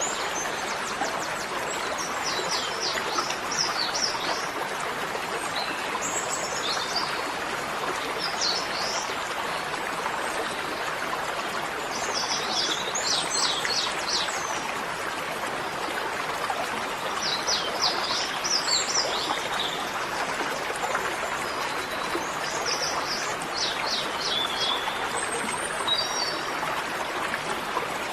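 Small birds chirping in short, quick phrases every few seconds over a steady rushing hiss like running water.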